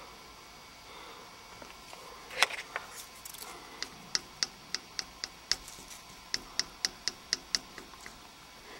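A single loud knock, then two runs of quick, sharp clicks at about four a second.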